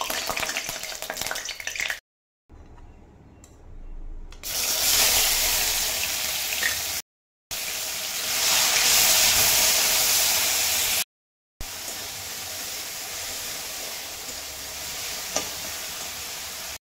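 A ground onion, green chilli and garlic paste sizzling in hot mustard oil in a steel kadhai, stirred with a steel spatula. It opens with the spatula clinking and scraping in the oil, then a loud sizzle starts about four seconds in and settles to a lower sizzle near the end.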